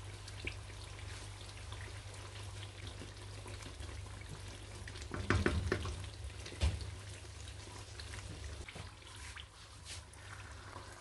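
Thick, oily shito chili sauce bubbling and popping in a pan at a hard boil, over a steady low hum. A wooden spatula stirs through it about halfway, the loudest part.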